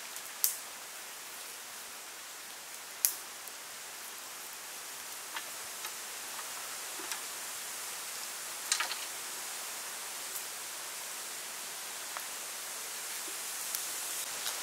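Bamboo skewers clicking and tapping against a metal tray and the snake meat as they are threaded through, a few sharp ticks with the loudest about three seconds in and a quick cluster near nine seconds, over a steady outdoor hiss.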